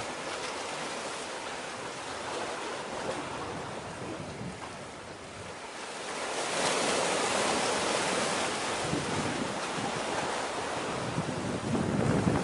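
Wind and sea noise, a steady hiss with wind buffeting the microphone, growing louder about halfway through, with gusty low rumbles near the end.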